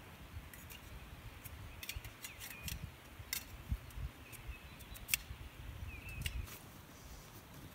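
Irregular sharp clicks and clinks with low thuds starting about two seconds in, from gear being handled on stony ground, while a small bird gives a few short chirps.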